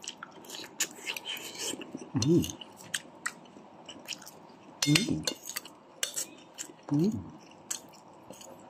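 A metal spoon clicking and scraping on a plate while rice is eaten and chewed, with three brief vocal noises from the eater.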